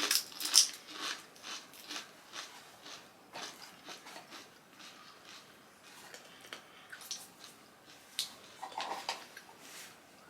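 Crunching and chewing of hand-cooked sea salt and pepper potato chips: irregular crisp crackles, loudest in the first second, then quieter bites.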